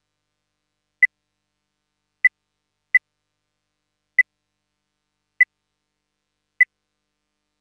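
Short electronic beeps of one high pitch, six in all, about one a second with one coming early, in dead silence between: the timing beeps of a video countdown leader.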